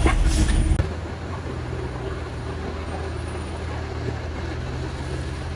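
Low rumble of a bus ride heard from inside the vehicle, cut off about a second in by steady roadside traffic noise with a low engine hum from passing and idling vehicles.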